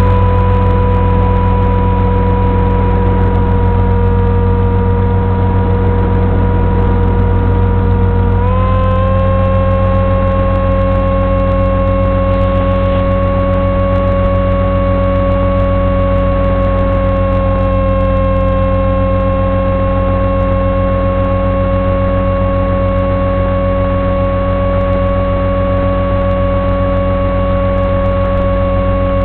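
Electric motor and propeller of a Sonic Model AR Wing flying wing running in flight: a steady whine that steps up slightly in pitch about eight seconds in as the motor speeds up, over a constant low hum.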